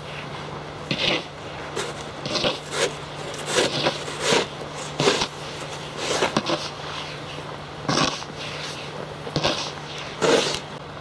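Snow shovel scraping and scooping packed snow, about a dozen irregular strokes as the snow is pushed and tossed aside.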